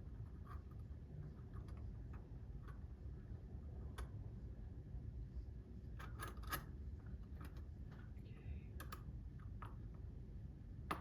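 Small, irregular metal clicks and taps of brass clock wheels and plates being handled and fitted together during reassembly of a cuckoo clock movement, over a steady low hum.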